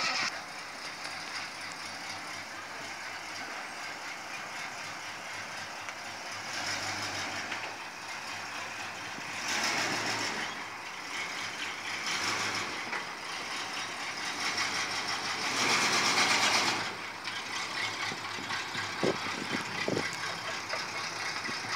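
Engine of a vintage Ford F-1 pickup truck running as the truck pulls slowly out of a garage, swelling louder three times, longest about three-quarters of the way through, as it is given throttle.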